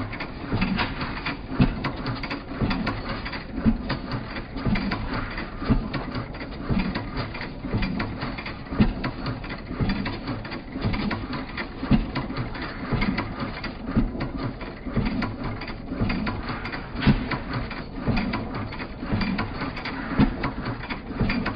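A machine running with a steady mechanical clatter and a low, regular beat about one and a half times a second, broken now and then by a sharper clank.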